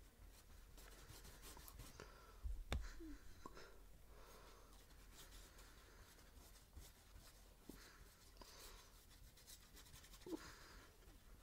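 Near silence with faint, intermittent scratching of paintbrushes stroking across small stretched canvases, and a soft tap about two and a half seconds in.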